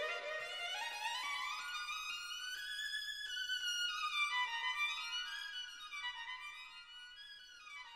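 Background music: a single instrument line that slides smoothly up in pitch, then down, then up again near the end.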